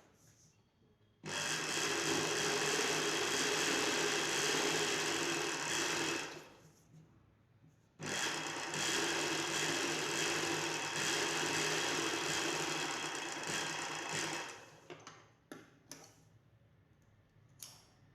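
Electric sewing machine stitching in two steady runs of about five and six seconds with a short pause between. A few light clicks and taps of handling the machine and cloth follow near the end.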